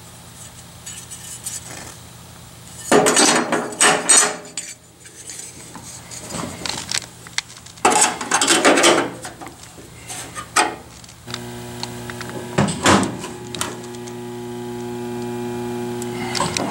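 Clatter and knocks of tools and metal being handled, in two loud rattling bursts. About two-thirds of the way in, a steady low electrical hum starts and keeps going.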